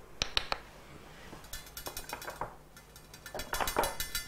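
A few light clinks against a stainless steel pan, then a rapid run of small ticks from about one and a half seconds in, getting louder toward the end.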